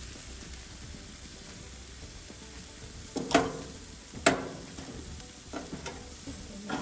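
Jerk chicken sizzling as it cooks, with a few sharp clinks about three and four seconds in.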